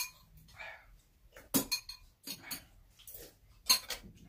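Spoons clinking and scraping against bowls as two people eat, with a few sharp clinks, the loudest about one and a half and nearly four seconds in.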